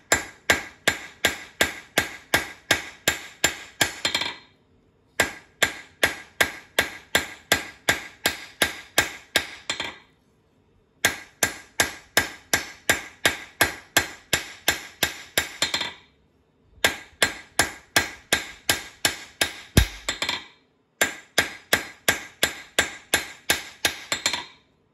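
Hand hammer striking a red-hot bar on an anvil in fast, even runs of about four blows a second, five runs of several seconds each with short pauses between, as the bar is forged round and drawn to a point.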